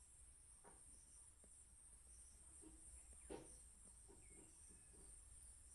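Near silence: a faint steady high hiss, with a few soft ticks and scratches from a ballpoint pen writing on notebook paper. The loudest tick comes a little past halfway.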